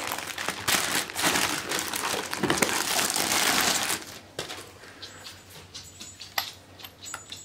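Thin plastic bag crinkling and rustling as it is pulled off an object by hand, loud for about four seconds, then a few quieter crinkles and handling clicks.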